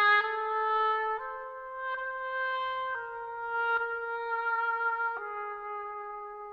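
Oboe playing a slow line of held notes, moving to a new pitch about once a second and ending on a long note.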